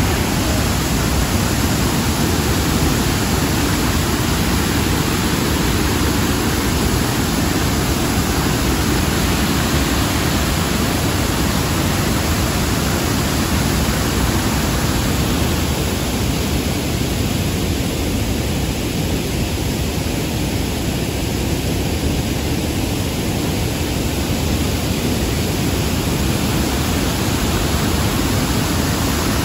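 Shifen Waterfall's wide curtain of white water pouring over its rock ledge: a loud, steady, unbroken rush of falling water.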